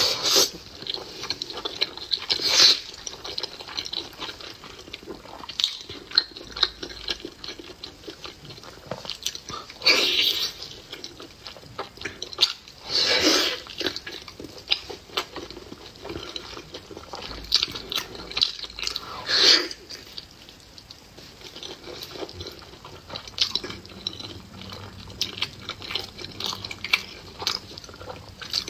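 Close-miked eating of beef tendon: wet chewing and mouth clicks, with a few louder wet slurping bursts spread through.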